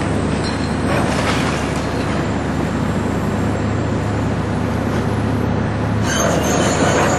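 Heavy diesel demolition machinery running steadily with a constant low engine hum. About six seconds in, a louder grinding, scraping noise joins it, typical of metal and concrete being torn apart.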